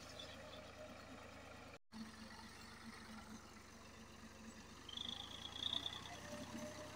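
Ford 4000 tractor engine running steadily and faintly at a distance while it pulls an implement through a flooded field. There is a brief dropout about two seconds in, and a high thin tone about five seconds in.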